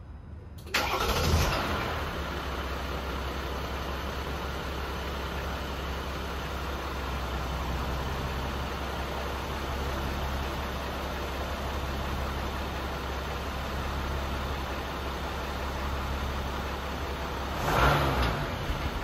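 Jeep Gladiator's 3.0-litre EcoDiesel V6 turbodiesel starting about a second in, flaring briefly and settling into a steady idle, with one short rev near the end.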